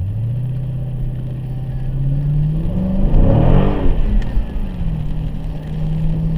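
Dodge Challenger's HEMI V8 accelerating, its engine note climbing steadily for about three seconds. A louder surge of engine and exhaust noise comes about three seconds in, rising then falling in pitch. After that the engine settles into a steady cruise.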